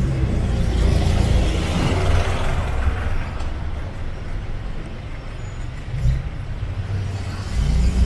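Street traffic: a motor vehicle passes about one to three seconds in, over a constant low rumble that swells again near the end.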